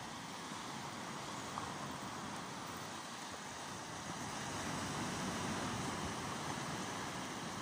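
Small waves washing up on a sandy beach, a steady rush of surf that grows a little louder about halfway through, with wind rumbling on the microphone.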